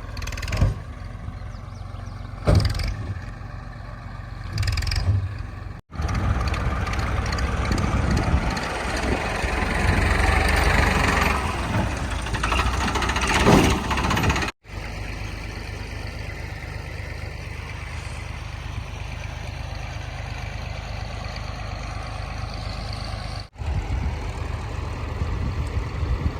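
Diesel engines of heavy machinery running, heard in several short clips that cut abruptly from one to the next. The first clip has a few clanks, and the next one is louder and noisier with working sounds before a steadier engine sound takes over.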